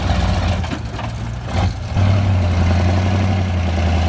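Heavy diesel engine of the dump truck or recovering excavator running with a steady low drone, growing louder about two seconds in.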